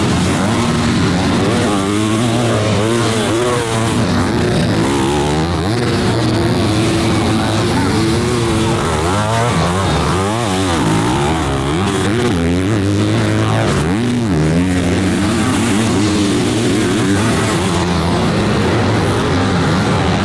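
Several motocross dirt bikes racing, their engines revving up and down over and over as they accelerate and shift.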